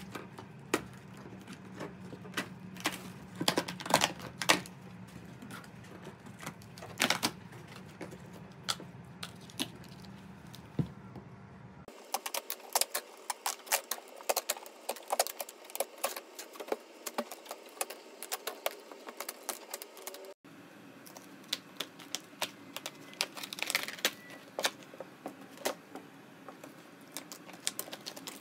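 Brittle old floor covering cracking and snapping as it is pried up and peeled back by gloved hands, with small pieces clattering down. It is a fast, irregular run of sharp cracks and clicks.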